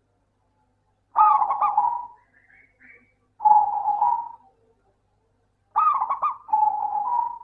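Zebra dove (perkutut) cooing in repeated phrases. Each phrase is a quick run of looping notes followed by a longer held coo, and the phrases come about every two seconds. Faint higher chirps from another bird come between the first two phrases.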